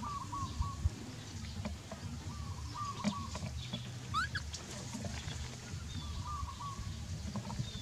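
Chickens clucking in three short bouts of quick repeated notes, with a brief rising call about halfway through, over a steady low rumble.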